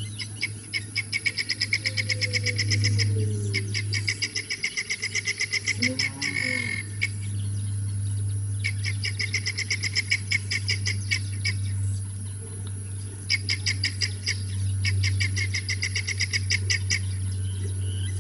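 A calling animal, most likely a bird, gives rapid trains of high chirps in bouts of two to three seconds with short pauses between, over a steady low hum.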